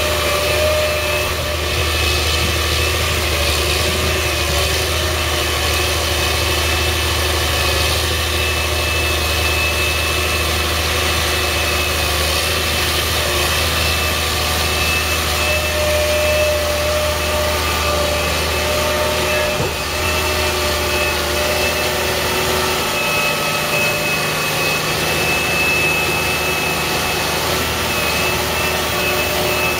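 Caterpillar Challenger MT765C rubber-tracked tractor's diesel engine running steadily under load as it pushes soil with a front-mounted dozer blade, with a steady whine over the engine.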